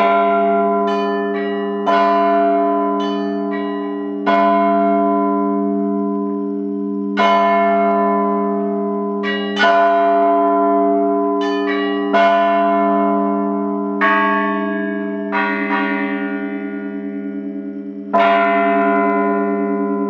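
Russian Orthodox church bells ringing: a set of bells of different pitches is struck in an uneven pattern, and the deep bells hum on between the strikes. The strikes come further apart toward the end.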